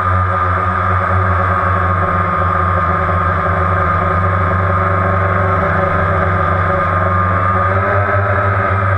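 DJI Phantom quadcopter's four electric motors and propellers whirring steadily in flight, heard close from the camera mounted on it. The pitch wavers slightly near the end as the motors adjust.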